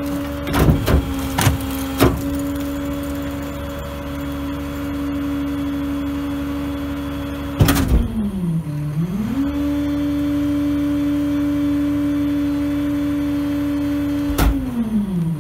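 Rear-loader garbage truck running at raised engine speed to drive its hydraulic packer, a steady drone with several clanks in the first two seconds. About halfway a loud clank comes, and the pitch sags and recovers as the packer takes load. Near the end another clank comes and the engine drops to a lower idle.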